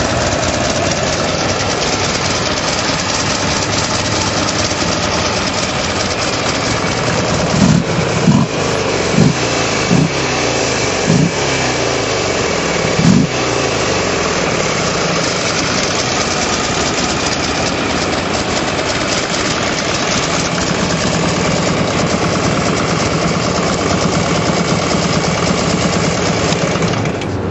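A 2007 Buell XB12STT Lightning SuperTT's V-twin engine running on the move under a steady wash of wind and road noise. There are six short, loud bursts of engine sound between about 8 and 13 seconds in.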